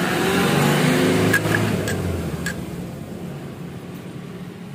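A motor vehicle's engine running past, loudest at the start and fading away over about three seconds. A few light metallic clicks come in the middle.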